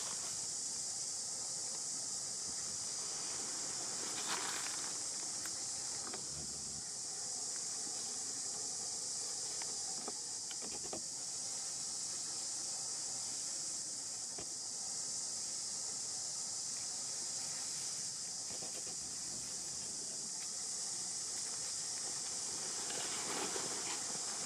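Steady high-pitched drone of insects, with brief rustles of dry leaves about four seconds in and again near the end.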